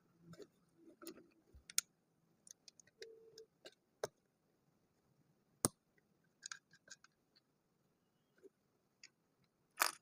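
Small plastic building bricks clicking and tapping as they are handled and pressed together: scattered sharp clicks at irregular intervals, with a louder one near the end.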